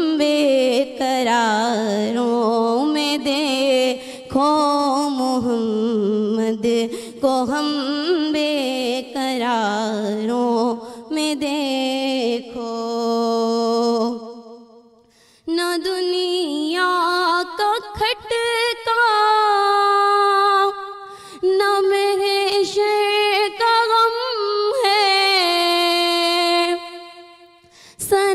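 A woman singing an Urdu naat unaccompanied into a microphone, in long, ornamented, wavering melodic lines. About halfway through she breaks off briefly and takes the melody up again higher in pitch.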